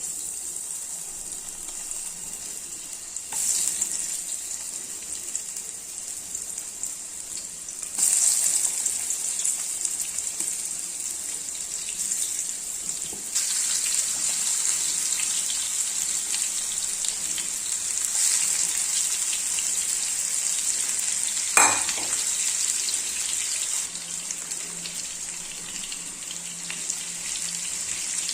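Food sizzling as it fries in hot oil, a steady hiss that steps up in loudness a few times, with one sharp knock about three-quarters of the way through.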